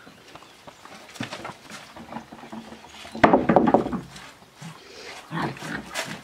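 Australian Shepherd puppies play-growling in short bursts, the loudest about three seconds in.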